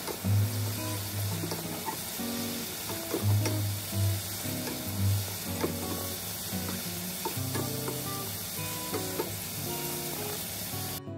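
Dried anchovies and sliced green chilies sizzling in oil in a nonstick frying pan, stirred and turned with a silicone spatula, with small scraping ticks. The sizzle cuts off just at the end.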